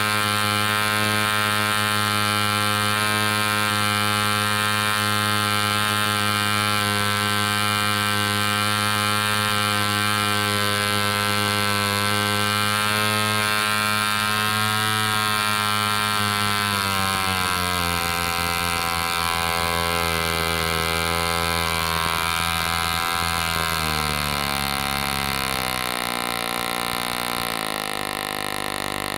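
1946 Super Cyclone .604 (10cc) spark-ignition two-stroke model engine running steadily on a 14x6 propeller at about 6,300 rpm. Over the second half it slows in steps to about 3,500 rpm as the ignition is retarded toward a tick-over.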